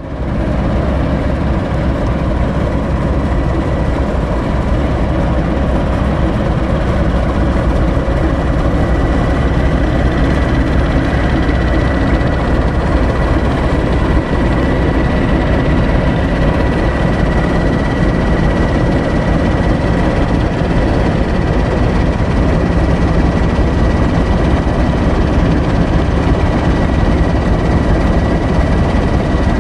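British Rail Class 08 shunter's English Electric six-cylinder diesel engine idling steadily at a standstill: a dense, even low rumble with a thin high whine held above it.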